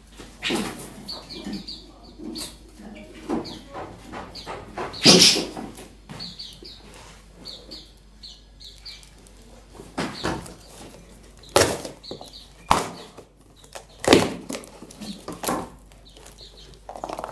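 Small wild-caught songbirds fluttering and scrabbling in a shipping box as they are handled, with scattered knocks and bumps and a few short chirps.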